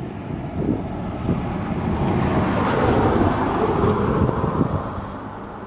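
Road traffic: a car passes, its noise swelling to a peak about three seconds in and then fading, over wind rumbling on the microphone.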